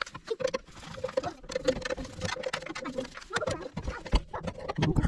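Irregular light clicks, taps and rattles of hands working metal parts at the boiler's pilot assembly, with a few duller knocks near the end.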